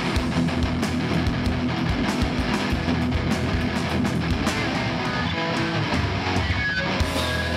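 Hardcore band playing live: electric guitars strumming chords over bass and drums.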